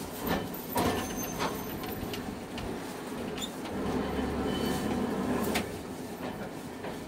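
Hankai Tramway tram rattling as it moves at low speed, with several sharp clunks in the first second and a half and a low hum starting about four seconds in and lasting about a second and a half.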